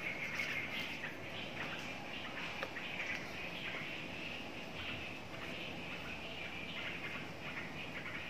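Birds chirping continuously in the garden, a steady pulsing chorus, with a few faint clicks of a knife cutting into young jackfruit.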